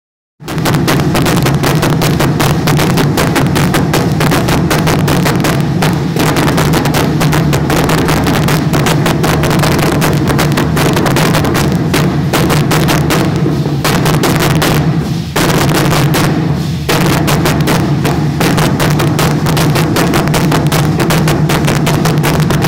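Aztec danza drumming on huehuetl, tall wooden drums with skin heads, played in a fast, steady, loud beat. The beat dips in loudness briefly about fifteen and seventeen seconds in.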